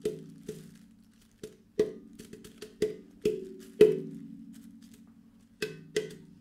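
Instrumental music: sparse, irregularly spaced percussive knocks over a low sustained tone that slowly fades away.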